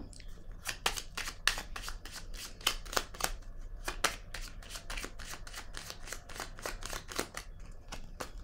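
A deck of tarot cards being shuffled by hand: a quick, uneven run of short card snaps, about three or four a second.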